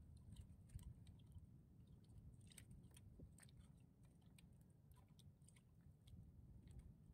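Near silence: a faint low rumble with scattered small, irregular clicks and ticks.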